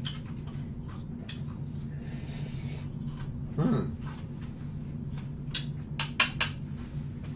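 Eating sounds from cold buckwheat noodles (naengmomil) eaten with chopsticks from a bowl: slurping and chewing, with a few sharp clicks near the end, over a steady low hum. A short hummed "mm" comes a little before halfway.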